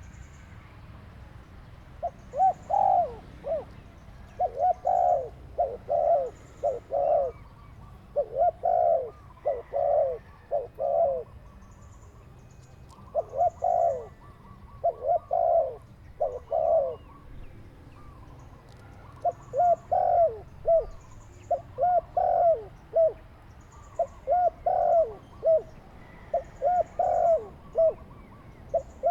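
A dove cooing over and over in runs of short coos, each run a few seconds long with brief pauses between, and faint high chirps in the background.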